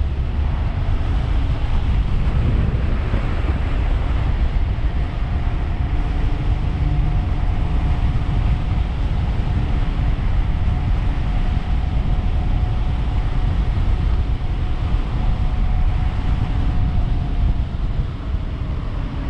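Wind buffeting the microphone on a fast-moving electric bike, a dense steady rumble. A faint steady whine runs underneath and drops slightly in pitch near the end.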